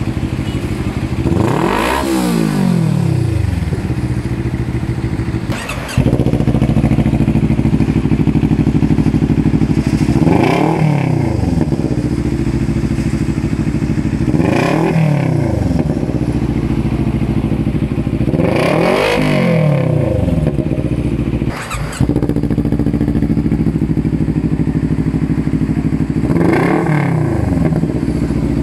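Two-cylinder motorcycle engine idling through an aftermarket exhaust and revved five times. Each rev rises quickly and falls back to idle, and the sound breaks off abruptly twice.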